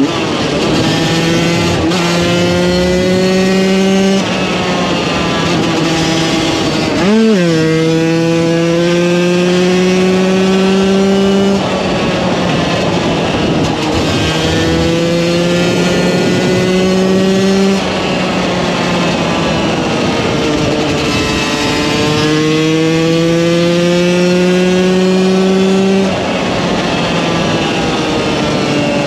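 KTM 125 EXC two-stroke single-cylinder supermoto engine pulling hard, its pitch climbing through each gear and dropping sharply at each of several gear changes. About seven seconds in there is a quick rev blip, up and straight back down.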